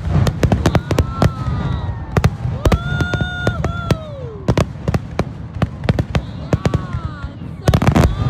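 Fireworks going off in a rapid string of sharp bangs and crackles over a low rumble. Several drawn-out pitched tones rise over the bangs, and the longest holds for about a second before dropping away.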